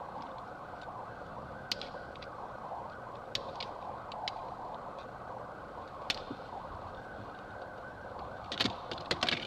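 Small sharp clicks and scrapes of a screwdriver working in behind a glued-on stator on an engine case, prying it loose. The clicks come a few at a time, with a quick run of them near the end, over a steady background hiss.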